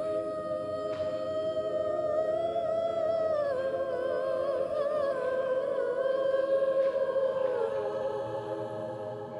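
Live synth-pop music: held chord tones under a wordless, slowly wavering melody line that drifts downward, then eases off near the end.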